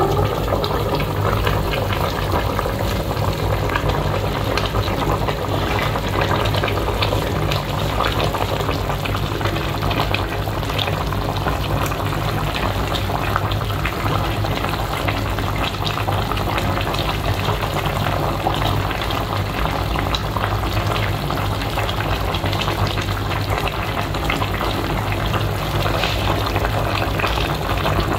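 Tomato sauce bubbling and sizzling in a pot of rice-stuffed sausages, a steady crackle of small pops with a low hum underneath.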